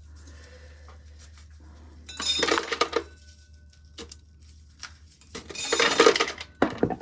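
Loose dried corn kernels clattering into a catch container under a corn sheller, in two bursts of about a second each: kernels leaking out of the sheller being caught.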